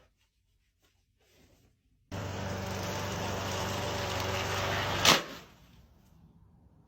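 A steady mechanical hum that starts about two seconds in and runs for about three seconds, cut off by one sharp, loud knock.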